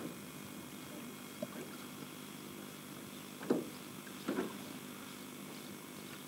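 Steady faint hiss of old video-tape audio, with two brief, sharp noises about midway through.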